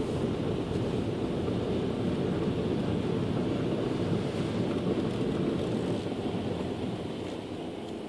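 A car driving slowly through floodwater running across the road, heard from inside the cabin: a steady rushing swish of water around the tyres and under the car, easing off near the end.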